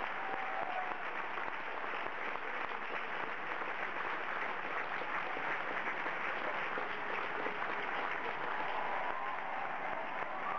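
Large arena audience applauding steadily, a dense even clapping with a few voices calling out over it.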